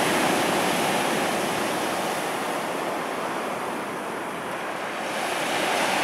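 Storm surf of the Black Sea breaking and washing up a shingle beach: a steady rush of waves that eases slightly partway through and swells again near the end.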